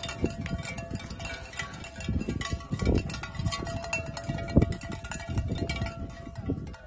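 Metal clinking and chiming, with many sharp clicks and a faint steady ringing tone, over irregular low thumps and rumble.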